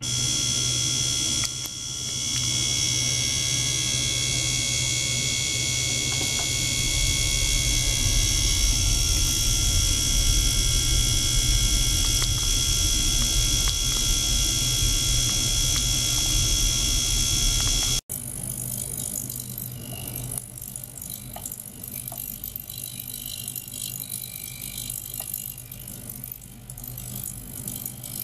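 Ultrasonic cleaning tank running together with a small water-circulation pump: a steady mechanical hum with several high, steady whining tones. About 18 s in, the sound cuts to a quieter, noisier running with a few faint ticks.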